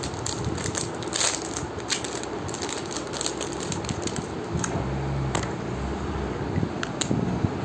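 Crinkling of a thin plastic wrapper and sharp clicks from a plastic lipstick tube being handled and opened. A low hum comes in briefly about five seconds in.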